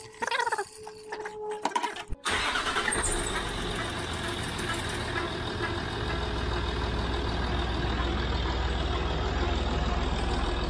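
Coolant being poured through a funnel for about two seconds. Then a Land Rover Discovery 3 engine starts and runs at a steady idle, its low hum settling a few seconds later.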